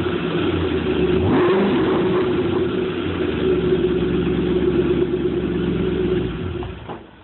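2010 Ford Mustang GT's 4.6-litre V8 running steadily through Borla Type S axle-back mufflers, with a brief change in pitch about a second in; the engine shuts off near the end.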